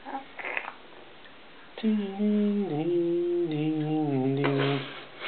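An adult humming a short, wavering tune for about three seconds, starting about two seconds in, with the pitch stepping down as it goes.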